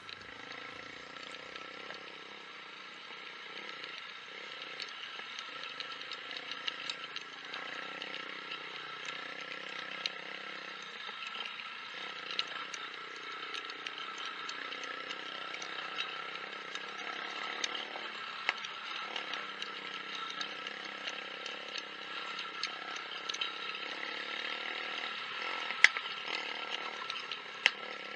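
Motorcycle engine running steadily at low trail speed, with rattles and scattered sharp clicks from the bike jolting over a rough dirt track, and one louder knock near the end.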